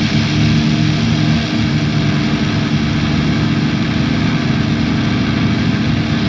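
Drone/noise music: a loud, steady wash of dense noise over sustained low droning tones, with no beat or pauses.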